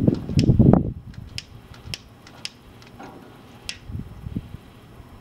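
Long-neck butane utility lighter's igniter clicking over and over, about seven sharp clicks roughly half a second apart, as it is struck to light the charcoal chimney starter.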